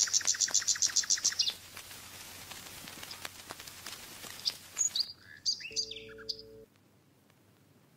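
Birds chirping: a fast run of high chirps, about eight a second, for the first second and a half, then a few scattered chirps with a short low tone, all cutting off suddenly after about six and a half seconds.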